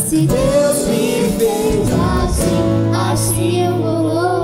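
Young girls singing a Christian worship song into microphones, backed by a live band with guitar. A long low note is held under the voices in the second half.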